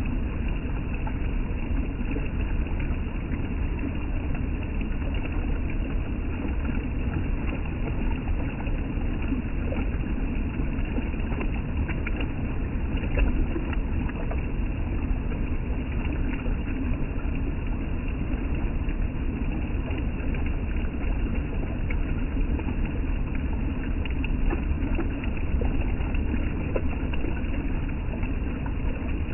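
Steady rushing of river water, an even low-heavy noise with no distinct events.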